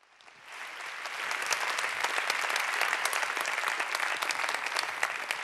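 Audience applauding, fading in over about the first second and holding steady, beginning to die down near the end.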